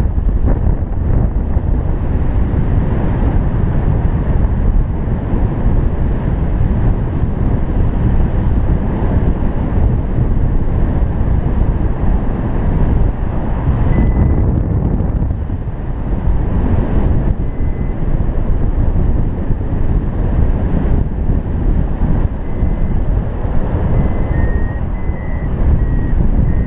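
Heavy wind noise on the microphone from the airflow of a paraglider in flight. From about halfway, a homemade ESP32 Arduvario variometer gives short high beeps, at irregular intervals and more often near the end, its climb tone for rising air above +0.15 m/s.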